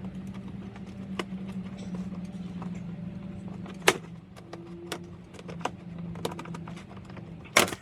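Sharp clicks and light ticks of parts and tools being handled on the vehicle, two louder clicks about four seconds in and near the end, over a steady low hum.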